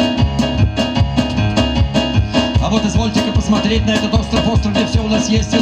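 Live band music from upright double bass, electric keyboard and cajón, with a steady beat of frequent strikes and a moving bass line.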